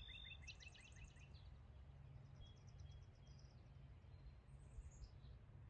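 Near silence outdoors: a steady low background rumble with faint songbird trills of quick repeated high notes, about a second in and again near the end.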